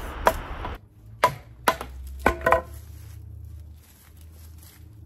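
Sharp wooden knocks and clacks from a wooden lattice trellis frame being worked with a hand tool: about five separate hits in the first three seconds. Two of them, just past two seconds, ring briefly.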